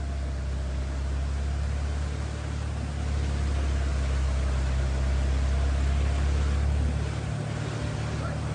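Force Gurkha's diesel engine running steadily with a deep hum as the SUV pushes slowly through deep floodwater, with a constant rush of water noise over it; it grows a little louder about three seconds in and eases near the end.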